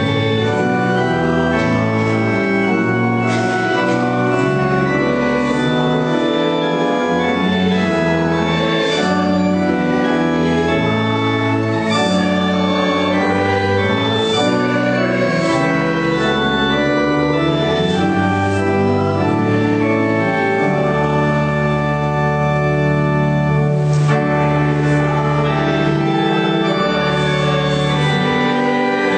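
Organ music: slow sustained chords that change every second or so, with a long held bass note in the second half.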